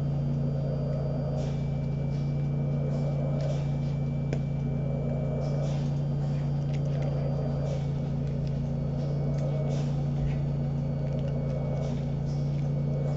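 Steady machine hum with a rush of air that swells every few seconds: a home ventilator cycling breaths through a tracheostomy circuit. A few faint clicks come in between.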